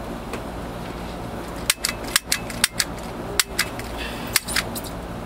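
A series of about ten sharp clicks, several in quick pairs, from a Black Ops Wolverine CO2 airsoft pistol being handled and worked in the hands.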